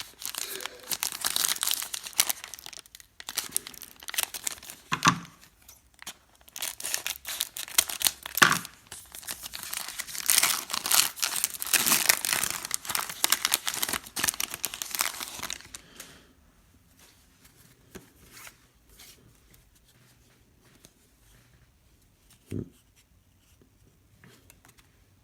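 Wrapping and packaging of a football trading card box being torn open, with plastic and foil crinkling, for about the first fifteen seconds. Then it goes quiet apart from light handling and a single soft knock near the end.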